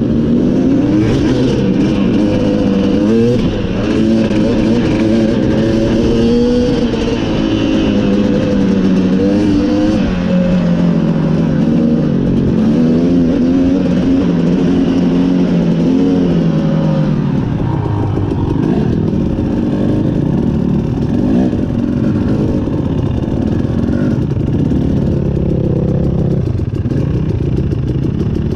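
KTM dirt bike engine heard from on board while riding a dirt trail, revving up and down through the gears, loud and steady with no pauses.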